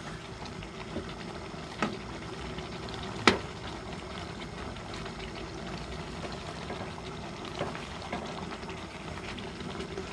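Thick coconut-milk rendang sauce with chicken and potatoes simmering and bubbling steadily in a frying pan as it reduces, while a spatula stirs it. A couple of sharp clicks of the spatula against the pan stand out, the loudest about three seconds in.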